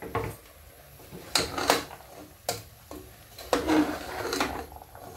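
Stainless steel ladle knocking and scraping against the metal pot of a pressure cooker while vegetables and peas are stirred into masala. It makes a series of irregular clinks and scrapes, loudest in two clusters, one in the first half and one near the end.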